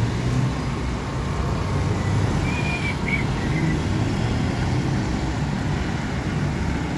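Street traffic with small motorcycle engines and pickup trucks running past, a steady low rumble. A few short high-pitched chirps come about two and a half seconds in.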